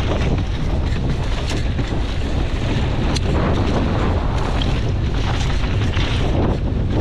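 Wind buffeting the camera's microphone while a downhill mountain bike runs fast over dry, loose dirt, with tyre noise throughout and scattered sharp clicks and rattles from rocks and the bike.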